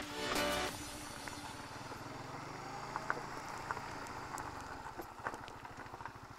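Music stops in the first second. A small motorbike engine then runs slowly at low speed while the bike rolls into parking, with a few light clicks.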